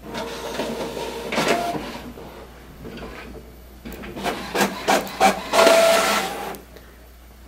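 Office printer printing, its mechanism whirring and clicking in two spells, the second louder, then stopping shortly before the end.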